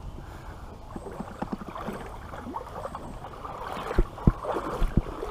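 Creek water sloshing and splashing, with scattered small knocks and a few heavy thumps about four to five seconds in, as a hooked fish is brought in.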